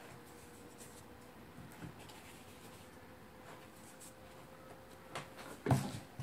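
A spoon scraping and stirring thick, sticky slime in a plastic bowl, a faint scratchy sound. Near the end there is one louder thump.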